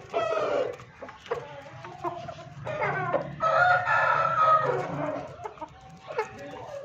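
Aseel roosters clucking and calling, with one long crow in the middle.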